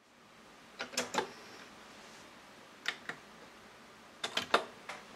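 Sharp mechanical clicks from the front-panel buttons and cassette mechanism of a Nakamichi LX-5 cassette deck being operated by hand: a cluster of three about a second in, two near three seconds, and a quick run of four just after four seconds.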